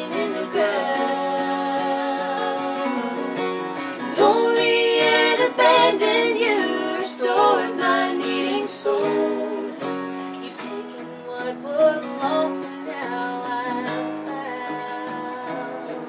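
A bluegrass song performed live: women singing in harmony with acoustic guitar accompaniment.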